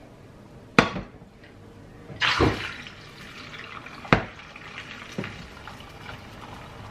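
Stainless steel frying pan knocked down on the ceramic hob, then whisked egg poured from a bowl into the hot oiled pan with a wet splash, and a sharp clink of the bowl against the pan about four seconds in.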